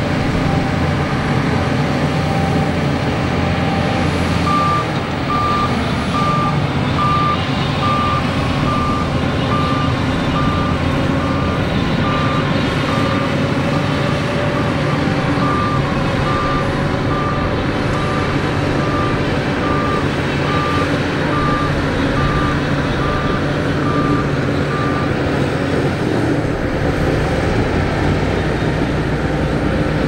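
Diesel engines of Shantui crawler bulldozers running under load while pushing mud. A reversing alarm beeps steadily, about one and a half beeps a second, starting a few seconds in, pausing briefly midway, and stopping near the end.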